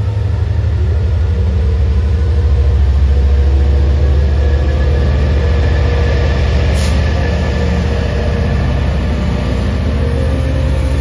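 Long Island Rail Road diesel push-pull train with bilevel coaches moving slowly through the station, its DM30AC locomotive's diesel engine giving a loud, steady low rumble. A brief hiss comes about seven seconds in.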